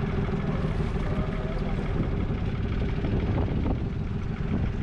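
Small wooden fishing boat's motor running steadily with an even hum.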